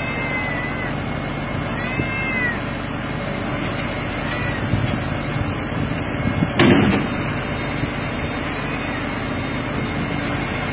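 A cat meowing several times, each call rising and falling, spread across the stretch over a steady engine hum. A single sharp knock sounds about two-thirds of the way through.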